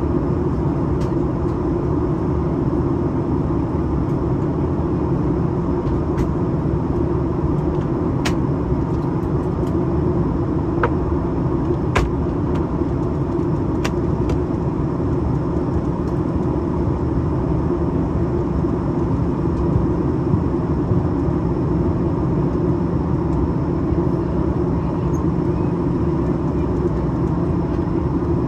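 Steady cabin noise inside a Boeing 737-900ER during descent: a low, even rush of airflow and engine sound, with a few faint ticks around the middle.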